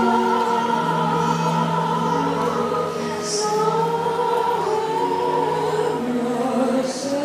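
Choral music: a choir singing long, held notes that move slowly from one chord to the next.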